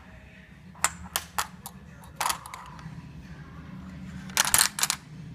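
Steel spring-clip barbell collars and plastic collars clinking and clacking against each other and the glass top of a digital kitchen scale as they are handled and set down. The sharp clicks come in small groups about a second in, around two seconds in, and in a quick cluster near the end, over a steady low hum.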